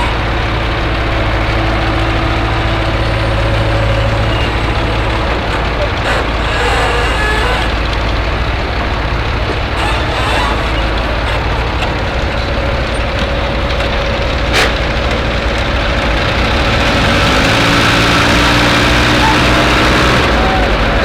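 Heavy machine engine running steadily at idle, with a single sharp click about two-thirds of the way in, then speeding up over the last few seconds.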